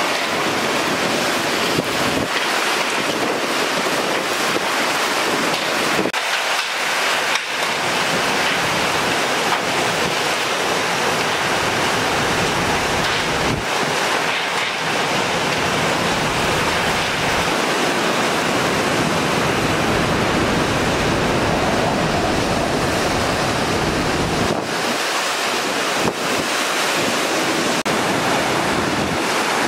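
Hurricane-force wind blowing steadily with heavy rain, its gusts buffeting the microphone with a low rumble that swells through the middle and eases near the end.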